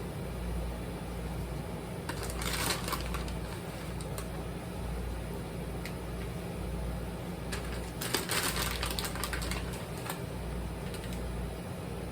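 Two short bursts of crinkly, clicking handling noise, about two seconds in and about eight seconds in, over a steady low hum.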